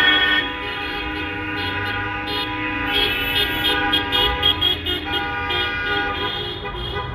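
Car horns honking in slow passing traffic, sounded by drivers in support of protesters. A loud blast comes at the start, then a quick run of short toots from about three to five seconds in, over steady held horn tones.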